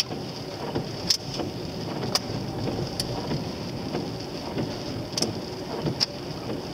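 Inside a car driving in the rain: steady road and engine noise, with scattered sharp ticks of rain striking the windscreen about once a second.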